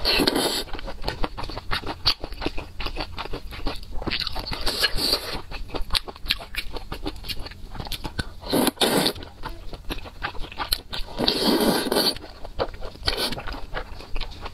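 Close-up wet chewing and mouth clicks of a person eating a spicy stew with chopsticks, with three longer, louder slurps of wide noodles: at the start, about eight and a half seconds in, and about eleven and a half seconds in.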